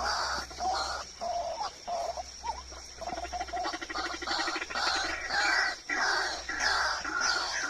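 White-breasted waterhen (ruak-ruak) calling: a run of repeated notes about two a second, with a fast rattling trill in the middle.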